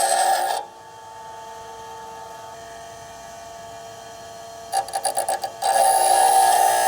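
Drill bit being hand-sharpened on a spinning grinding wheel: loud steady grinding with a ringing tone stops just after the start, leaving the wheel running with a lower hum. A few short touches of the bit against the wheel follow, then steady grinding resumes.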